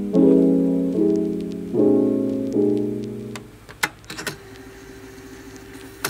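Soft background piano music, a few chords struck and decaying, fading out about three and a half seconds in; after that a few faint sharp clicks over a low held tone.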